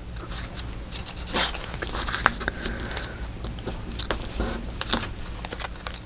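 Paper being handled on a work surface: irregular rustles, scrapes and small clicks as a cut, folded piece of paper is moved around.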